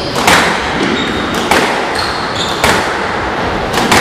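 Squash rally: four sharp hits of the ball off racket and wall, about one every 1.2 seconds, each echoing in the court. Short high squeaks of court shoes on the wooden floor come between the hits.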